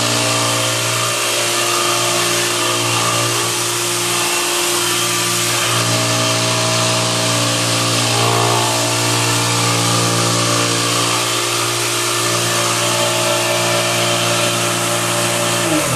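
Clarke American Sanders OBS-18 orbital floor sander running steadily as it is worked across a hardwood floor, abrading the old finish: a loud, even motor hum over a constant hiss of sanding.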